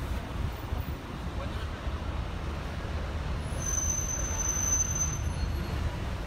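Open-top double-decker bus driving through city traffic, heard from its upper deck: a steady low rumble of engine and road noise. A brief high-pitched tone sounds about four seconds in.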